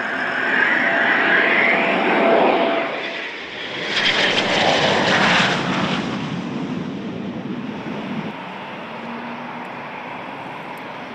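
Eurofighter Typhoon's twin EJ200 jet engines whining and roaring as it lands, with a loud rushing surge about four seconds in that then dies down to a steadier, quieter jet noise.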